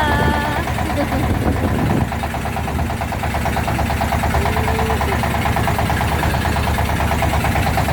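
A boat's engine running steadily with an even, fast pulsing rumble.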